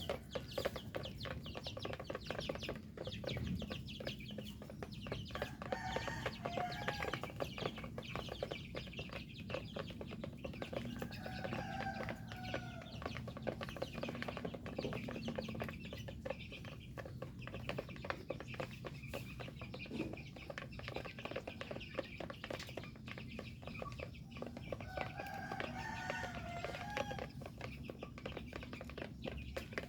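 Chickens clucking, with a few louder calls, over a steady dense patter of small clicks.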